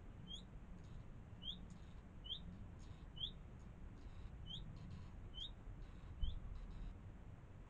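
Redstart calls: a short, rising whistled note repeated about once a second, seven times, over a faint low rumble, with a dull bump about six seconds in.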